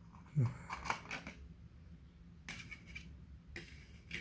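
Light clicks, taps and rustles of a cardboard box and its packaging being handled, a few scattered handling noises, as items are taken out of the box.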